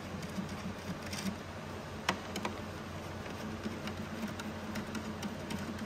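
Scattered light clicks and taps of hand tools and screws as the screws are undone from a Sparkular II cold-spark machine's casing, over a steady low hum.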